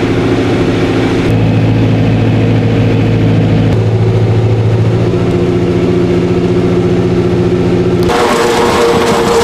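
Farm diesel engine running steadily during potato harvesting, heard from inside the machine's cab. The sound changes abruptly about a second in, again near four seconds, and near eight seconds, where it turns to a higher steady hum.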